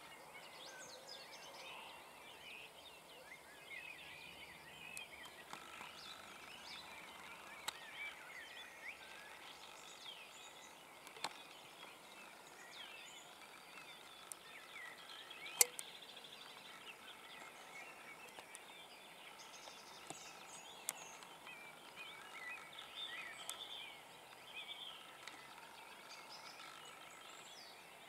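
Faint chorus of small birds chirping and singing, with short repeated whistled notes, broken by a few sharp clicks, the loudest about halfway through.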